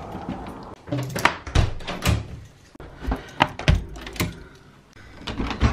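Windows being shut: lever handles on white uPVC frames turning and the casements closing, in a string of sharp clicks and thunks with short pauses between.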